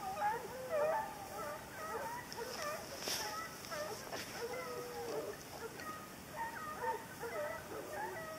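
A pack of boar-hunting hounds giving tongue faintly: many short, overlapping yelps and bays with no let-up. It is the cry of hounds working a wild boar.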